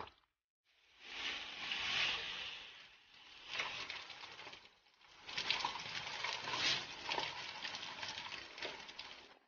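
Meat skewers sizzling and crackling on a grill, breaking off briefly twice.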